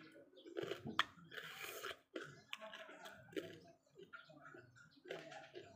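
Raw cucumber being bitten and chewed close to the microphone: irregular crunches and wet mouth clicks, with a sharp crunch about a second in.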